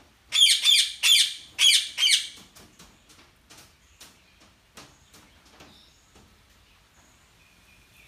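Indian ringneck parakeet squawking: a quick run of loud, harsh calls over the first two seconds, then only faint chirps and clicks.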